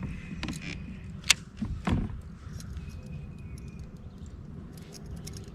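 Handling noises in a kayak: a few sharp clicks and knocks, the loudest about a second in, over a low steady rumble.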